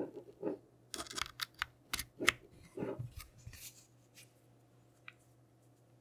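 Hoodie sleeve rustling and handling noise as an arm reaches across the keyboard close to the microphone, mixed with a quick run of sharp clicks and taps over the first three and a half seconds, the loudest about two seconds in; one faint click follows near the end.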